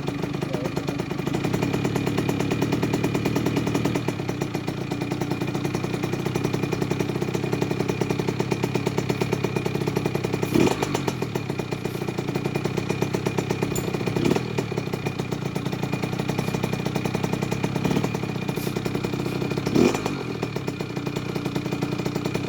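Kawasaki KX65's 65cc two-stroke single-cylinder engine running steadily on a break-in heat cycle of a freshly rebuilt motor, with three brief louder blips spread through the middle and later part.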